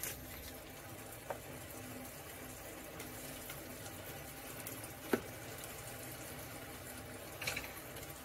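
Diced chicken frying with a faint steady sizzle in butter and oil in an enamelled cast-iron Dutch oven, as the pieces are turned with a slotted spoon. There is a sharp knock of the spoon on the pot about five seconds in, and a brief scrape near the end.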